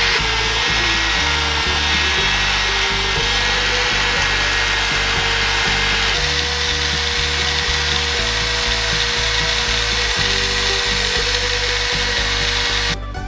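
Handheld rotary tool spinning a small abrasive wheel against a small steel revolver part, a steady grinding hiss of the wheel on metal that stops shortly before the end. Background music with a steady bass line plays underneath.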